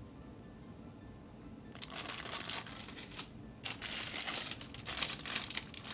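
Plastic parts bags of building-block pieces crinkling as they are handled and searched through. The crinkling starts about two seconds in and breaks off briefly just past halfway.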